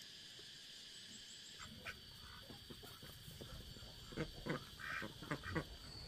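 Chickens clucking in a quick run of five or six short calls near the end, over a steady high insect buzz. A low rumble comes in about a second and a half in.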